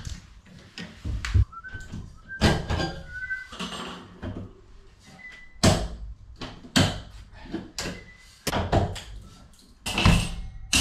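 Scattered knocks, clunks and clicks of metal fittings being unscrewed and pulled down from the ceiling inside an empty metal shelter, with a few brief squeaks in between.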